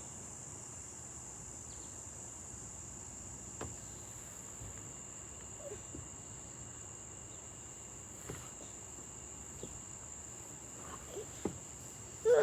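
Steady, high-pitched chirring of insects such as crickets, with a few faint ticks. Near the end a short, loud sound stands out above it.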